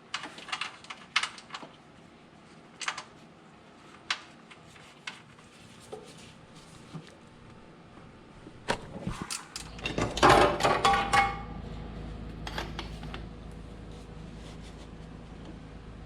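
Light scattered clicks and knocks of hands handling tools and fluid containers. About nine and a half seconds in, a low steady hum starts and runs on, with a louder rattling clatter just after it starts.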